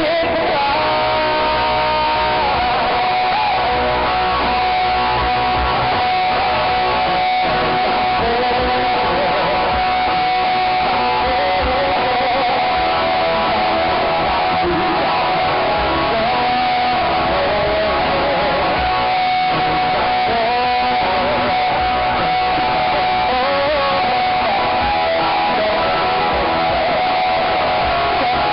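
Live band music through a PA system with electric guitar prominent, recorded very close to the speakers, so the sound is loud and distorted.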